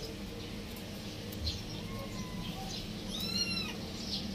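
A cat meows once, about three seconds in: a single rising-then-falling call lasting about half a second. Faint short chirps and a steady low hum sit beneath it.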